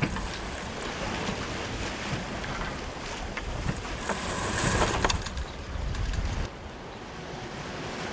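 Wind and rushing water around a sailboat under way, with wind buffeting the microphone and a louder hissing swell of spray about four to five seconds in. About six and a half seconds in the sound cuts off abruptly to a quieter background.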